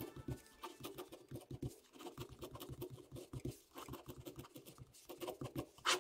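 Ballpoint pen scratching on paper, writing capital letters in quick, irregular short strokes, several a second, with one longer, louder stroke near the end.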